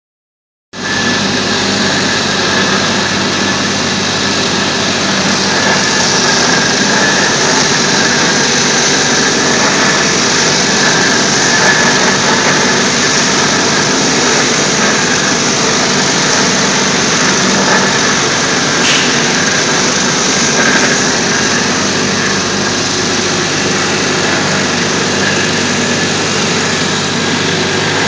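Electric concrete floor grinder with a diamond disc running steadily, grinding paint off a concrete floor: a loud, even grinding noise over a low motor hum, starting just under a second in.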